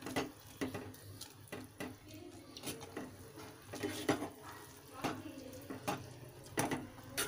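A spoon knocking and scraping against a pot while stirring cooked instant noodles to mix in the masala powder: about a dozen irregular clinks, a little wet stirring in between.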